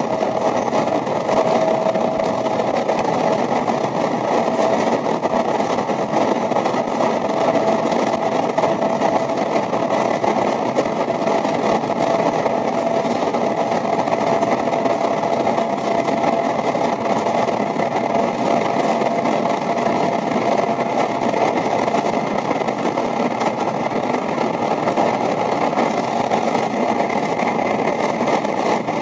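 A 0 Series Shinkansen running at speed through a tunnel, heard inside the carriage as a loud, steady rumble. A faint whine in it slowly fades and drops a little in pitch.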